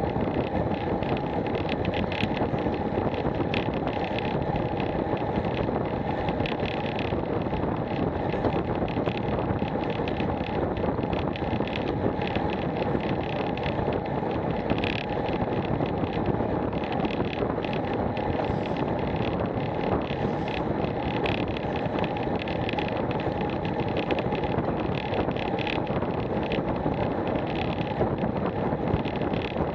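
Steady wind rushing over the microphone of a camera mounted on a road bike riding at over 20 mph, mixed with tyre noise on the tarmac. Frequent small clicks and rattles run through it.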